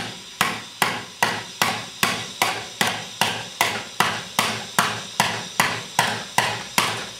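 Wooden mallet hammering a plastic bottle into the mouth of a metal cannon barrel to wedge it in tight as the projectile. Steady, even blows come about two and a half a second, each with a short ringing decay.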